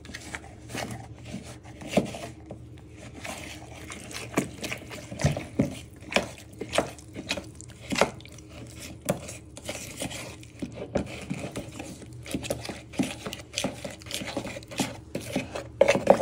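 Spoon stirring icing sugar and water in a plastic mixing bowl, with frequent irregular taps and scrapes of the spoon against the bowl.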